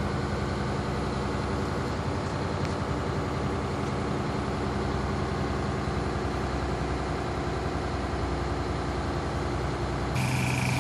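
1988 Crown Coach school bus diesel engine idling steadily, heard from inside the passenger cabin. Near the end the sound grows a little louder and deeper.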